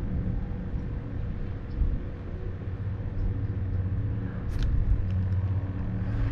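Low rumble of wind buffeting the microphone, with a faint steady hum underneath and one sharp click about four and a half seconds in.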